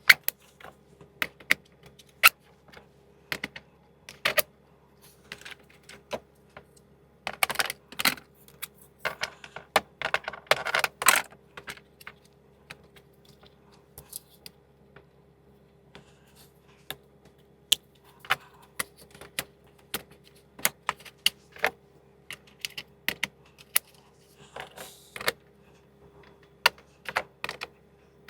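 Metal sockets clicking and clinking as they are handled and twisted onto socket-rail holders, with two short bursts of rattling about a quarter and about a third of the way in.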